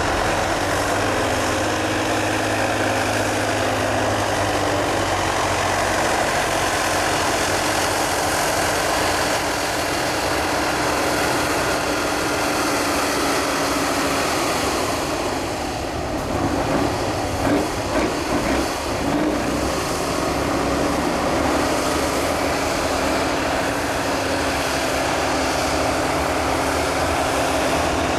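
Heavy diesel engine of a multi-axle off-road trial truck working under load as it climbs rough, steep ground, its note steady but shifting slowly in pitch. A short patch of knocks and clatter comes about 17 seconds in.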